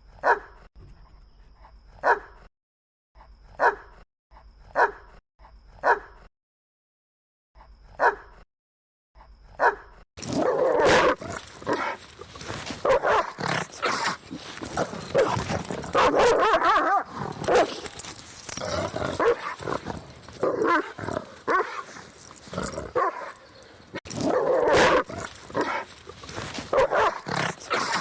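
German Shepherd barking: single loud barks about a second or so apart at first, then, about ten seconds in, a louder stretch of rapid, nearly continuous barking that keeps going.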